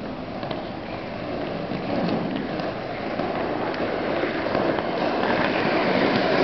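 Inline-skate wheels rolling on asphalt: a steady rolling hiss that grows gradually louder, with a few faint clicks.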